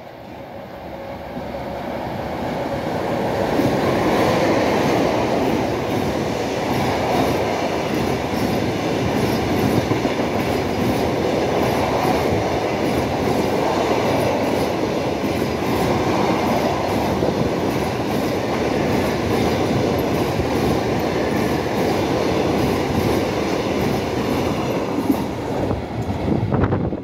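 EP2K electric locomotive running through a station at speed with an express passenger train. The sound builds over the first four seconds as the locomotive nears, then the carriages pass close by with a steady rumble of wheels on rails, which cuts off near the end.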